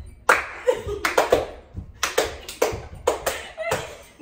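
Handclaps from a cheer routine: sharp, short claps in quick pairs and small groups, about ten in all.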